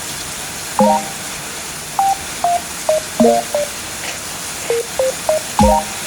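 A simple electronic melody of short, clean notes at changing pitches, a few a second, over a steady hiss.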